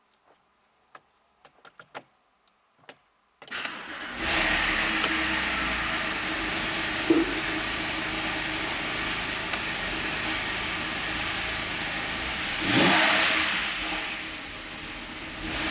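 A few light clicks of the key and dash, then the Porsche 997 Carrera S's flat-six boxer engine starts about three and a half seconds in and settles into a steady idle, heard from inside the cabin. Near the end it is revved once, rising and falling back, with a smaller blip just after.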